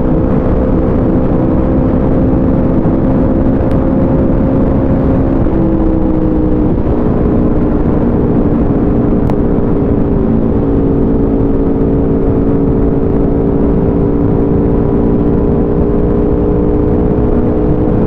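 Aprilia RSV4 RF's V4 engine through an SC-Project CRT full exhaust, cruising at near-steady revs, its pitch shifting slightly about six seconds in. Wind rush on the microphone runs under it.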